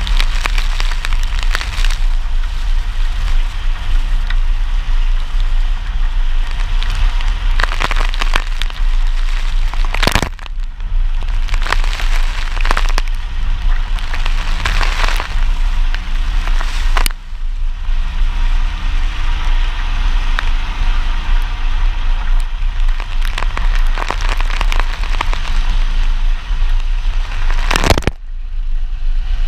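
Pickup truck driving a muddy dirt road in the rain: a steady low engine and road rumble under a crackling spatter of rain and mud on the body, with splashing surges every second or two. The sound briefly cuts out three times.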